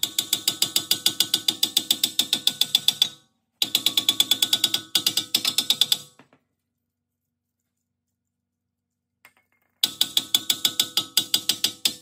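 Quick, light hammer taps on a 2015 Ford Explorer's front steel brake rotor, several a second, each strike making the rotor ring; the taps are meant to break a rotor stuck on the hub. The tapping stops for a few seconds just after the middle and starts again near the end.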